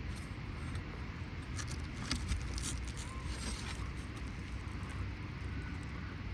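Light metallic scrapes and clicks of tools working under an asphalt shingle to free its nails, scattered through the first half, over a steady low rumble.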